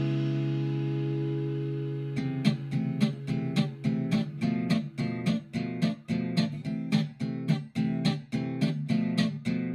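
Background music on acoustic guitar: a held chord fades for about two seconds, then steady rhythmic strumming begins.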